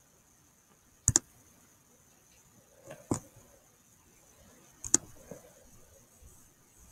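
Sharp computer clicks: a quick double click about a second in, a single click near three seconds and another double click near five seconds, from the pointing device used to draw on screen.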